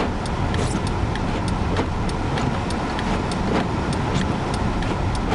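Car cabin noise while driving through a blizzard: a steady low rumble of engine, road and wind. Over it runs an even, light ticking about three times a second.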